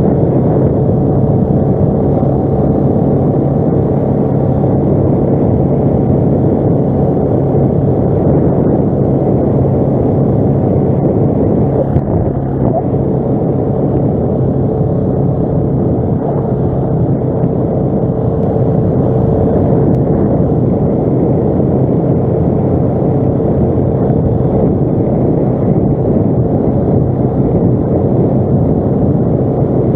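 ATV engine running at a steady pace while riding, a loud, even drone with no change in pitch.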